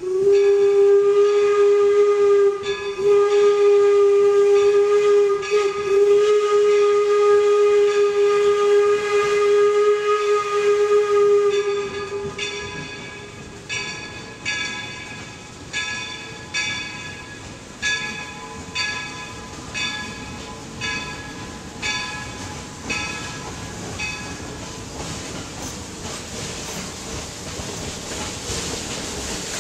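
The steam whistle of Northern Central 4-4-0 No. 17 blows one long, steady blast of about twelve seconds as the locomotive departs. It then starts its train, with slow exhaust chuffs about once a second that blend into a steadier running sound near the end.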